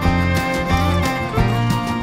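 Background music: upbeat country/bluegrass-style tune with guitar and fiddle over a steady beat.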